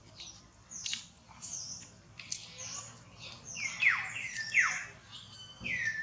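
Baby monkey's high-pitched squeaks and cries: a run of short shrill calls, with two loud calls near the middle that fall steeply in pitch, and another falling call near the end.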